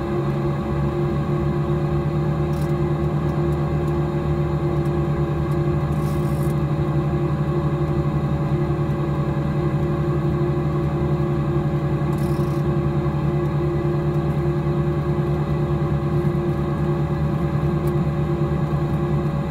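Twin Continental geared, turbocharged six-cylinder piston engines of a Cessna 421 Golden Eagle running steadily at low power, heard from inside the cockpit as a constant droning hum while the plane rolls on the ground at night.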